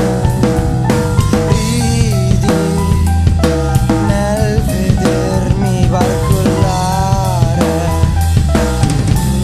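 Background music with a drum kit beat, a bass line and a bending melodic line on top.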